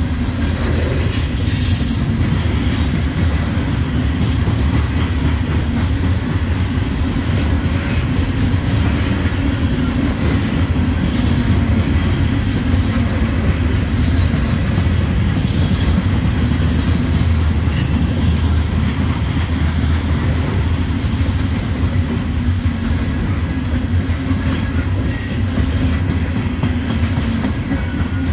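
Loaded CSX coal hopper cars rolling past close by: a loud, steady low rumble of steel wheels on the rails, with a few brief sharp high-pitched noises from the running gear.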